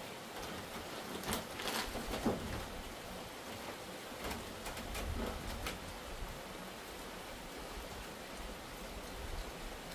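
Steady rain falling, with scattered sharper ticks and knocks, the loudest about two seconds in.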